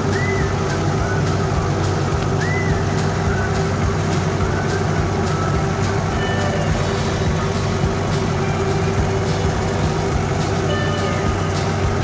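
Farm tractor engine running steadily under load while mowing tall grass, with a constant low hum. A few short high chirps come through near the start.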